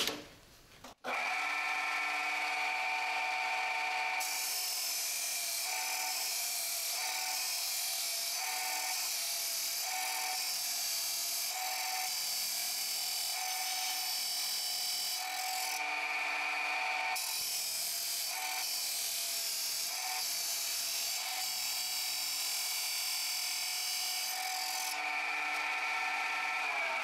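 Abrasive cut-off saw with a 400 mm wheel starting up about a second in, then grinding down through steel tube from about four seconds in, with a brief let-up in the middle; the cut ends near the end while the motor runs on. The wheel has just been dressed by cutting thin plate to break off its glazed surface, so it cuts cleanly instead of melting the metal.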